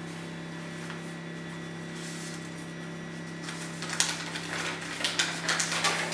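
A steady low hum, then from about three and a half seconds in, a small piece of paper crinkling and rustling as it is unfolded and handled.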